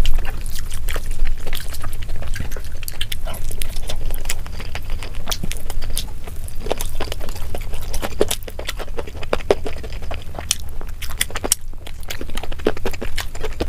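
Close-miked eating sounds played at double speed: fingers squishing through curried biryani rice, with wet chewing and lip smacks. A dense run of quick clicks and smacks sits over a low steady hum.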